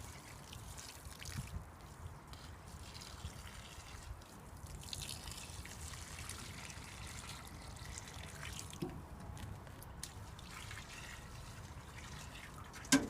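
Faint trickling of water, with a small click about nine seconds in and one sharp knock near the end.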